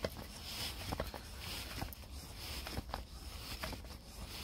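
Grease gun pumping fresh grease into a topper's bearing through its grease nipple: a few faint clicks about a second apart over a low steady rumble.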